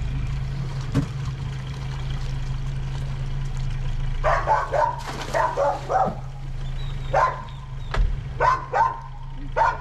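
Short barking animal calls, first a quick run of several, then a few single ones, over a steady low engine hum.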